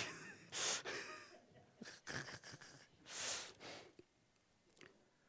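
A few soft breaths close to a microphone during a pause in speech, each about half a second long, fading out near the end.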